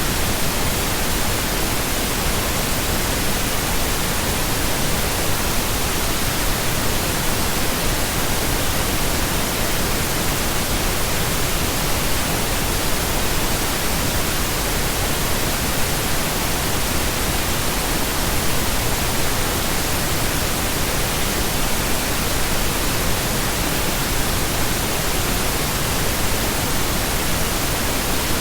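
Steady synthetic pink noise: an even, unchanging hiss spread across all pitches, with no tones, rhythm or events.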